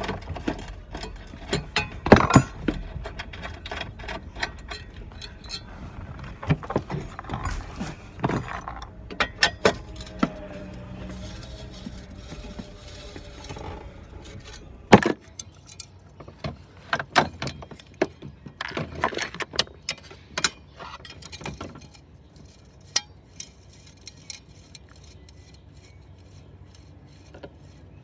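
Metal hand tools clinking, tapping and knocking against the truck's evaporator housing and its fasteners as the housing is unbolted. The sharp clicks come irregularly, thinning out and getting quieter in the last several seconds.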